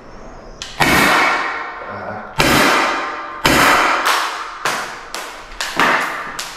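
Rossi Vesta .50 CO2 pistol firing three steel balls: three sharp, loud reports a second or more apart, each with a ringing tail. Then a run of lighter taps that come quicker and quicker.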